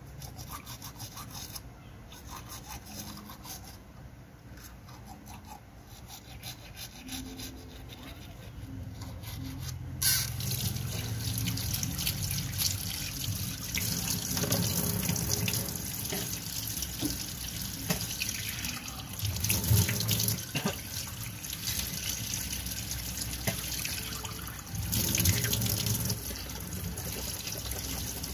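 Toothbrush scrubbing teeth, then a tap turned on about ten seconds in, with water running steadily into a stainless steel sink as she rinses.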